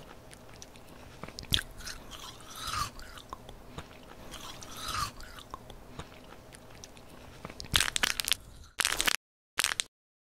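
Close-up eating sounds of a chocolate-coated ice cream bar: small bites, crackles and chewing, then a run of loud crisp crunches near the end that cuts off abruptly into silence.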